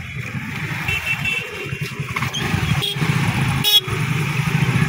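Small motor scooter engines running as they ride past at close range, the pulsing engine note growing louder toward the end. A short horn beep sounds about three-quarters of the way in.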